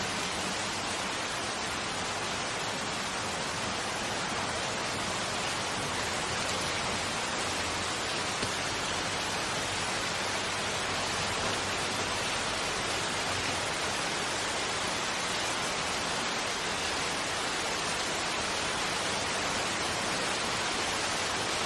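Steady rain falling, an even hiss that neither swells nor breaks.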